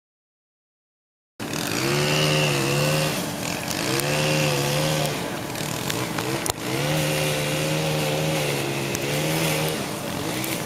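An engine revving in four repeated surges, its pitch rising and falling, with a fainter high whine alongside some of them. A sharp click sounds about halfway through.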